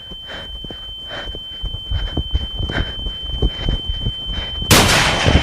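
Footsteps crunching through snow about twice a second, under a steady high-pitched electronic tone. Near the end a loud burst of static cuts in, then drops out abruptly.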